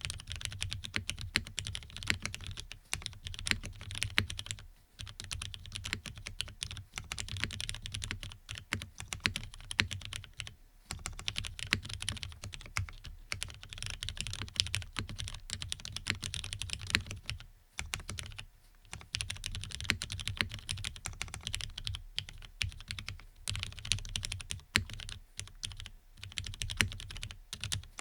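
Steady typing on a Geonworks Frog custom mechanical keyboard with lubed Cherry MX Black linear switches on an FR4 half plate: a dense run of keystroke clacks, broken by a few short pauses.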